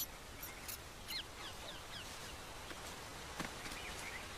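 Quiet forest ambience: small birds give short falling chirps now and then over a faint steady hiss.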